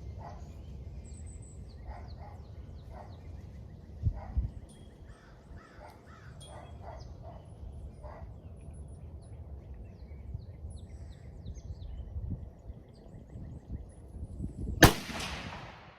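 A single .223 rifle shot from a Savage Axis bolt-action rifle about 15 seconds in, a sharp crack with a short echo tail. Before it, a steady low outdoor background with faint repeated bird calls.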